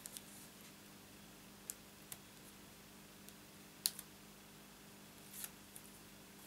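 Sparse, faint clicks and taps of a hand tool and cardstock as the backing is picked off strips of double-sided tape on a small card piece, the sharpest click about four seconds in, over a faint steady hum.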